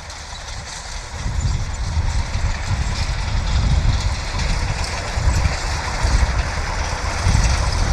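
Strong gusty wind buffeting the microphone: a heavy, uneven low rumble that swells and drops with the gusts over a steady hiss.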